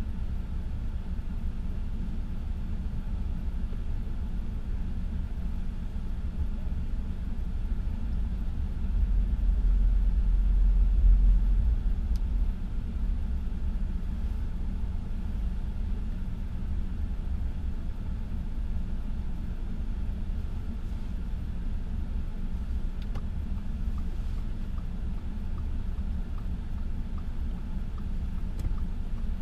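Steady low rumble of a car heard from inside the cabin, its engine and running noise, swelling louder for a few seconds about ten seconds in.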